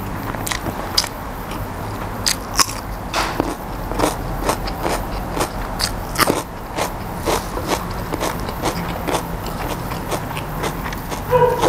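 A person chewing and eating a mouthful of koi, Isan raw beef salad, close to a clip-on mic: wet chewing and irregular sharp mouth clicks.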